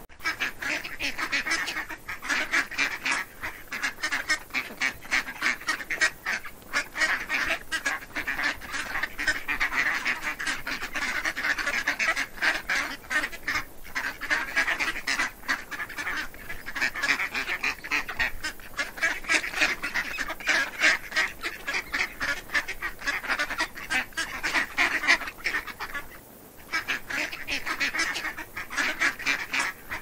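A group of domestic ducklings peeping continuously, many rapid, high calls overlapping, with a short pause about 26 seconds in.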